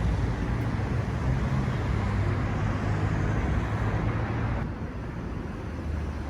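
Steady vehicle road noise: a low rumble with a hiss on top, easing slightly about four and a half seconds in.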